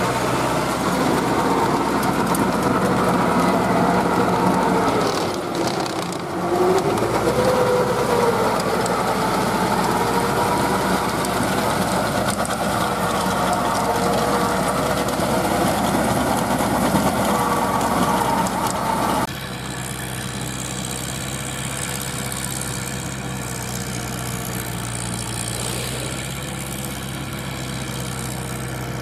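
Farm tractor's diesel engine running steadily under load while its rotary tiller churns dry soil. The engine note sags about five seconds in and picks back up. From about 19 s on there is a quieter, smoother tractor engine.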